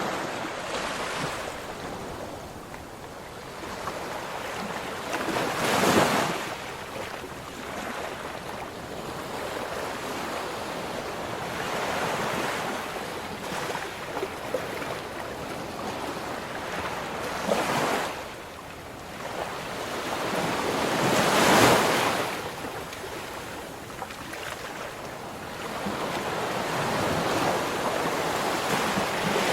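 Ocean waves breaking and washing on a shore: a continuous rush of surf that swells and ebbs, with louder breakers about six seconds in, near eighteen seconds, and the loudest around twenty-two seconds.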